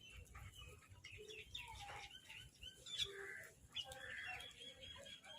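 Birds chirping and calling over one another, with a fast run of repeated high notes about four seconds in.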